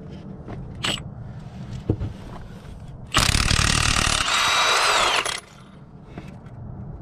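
Milwaukee M18 Fuel 2767 cordless impact wrench hammering on a 19 mm Honda crankshaft pulley bolt through a heavy welded socket, starting about three seconds in and lasting about two seconds. Partway through the hammering lightens and the motor pitch rises as the bolt breaks loose and spins out, then the wrench stops.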